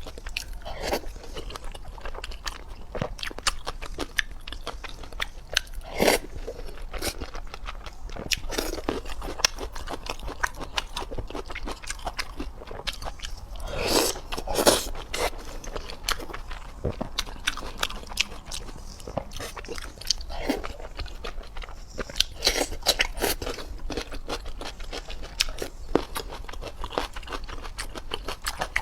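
Close-miked eating: crunchy biting and chewing of food, a dense irregular run of crisp crackles and clicks, with louder crunching bites about six seconds in and around fourteen seconds in.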